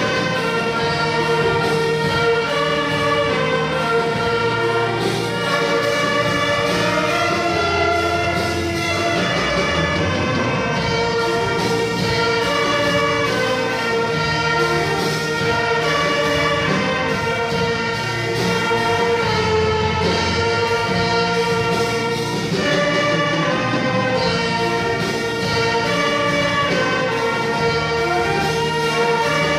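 Church orchestra playing a hymn: sustained, chorale-like chords at a steady level.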